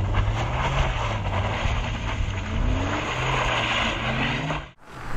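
Motor vehicle engine running under way, its note wavering up and down over a steady rush of wind and road noise. The sound cuts out briefly near the end and then resumes.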